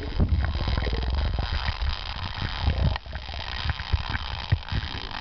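Underwater sound picked up by a camera in a waterproof housing: a muffled low rumble of moving water with many sharp clicks and crackles, thickest in the first second or so.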